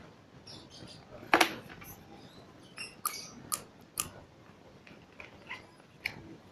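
Homemade glue slime being stirred and handled, giving irregular small sticky clicks and squelches, with one louder one about a second and a half in.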